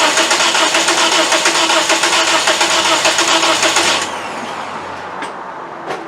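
Starter motor cranking the 2009 Toyota Corolla's 1.8-litre four-cylinder engine for about four seconds without it catching, in a rhythmic pulsing beat, then stopping abruptly. The cranking is taken during a compression test on an engine that the mechanic judges to have bad compression. Two short clicks follow near the end.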